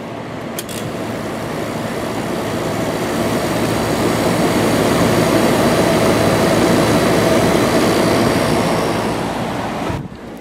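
Hampton Bay 5,100 BTU window air conditioner (Fedders-built, LG fan motor, Samsung compressor) running with its compressor just started: a loud steady rush of fan and airflow over a low hum. It grows louder over the first few seconds, holds, then drops sharply near the end.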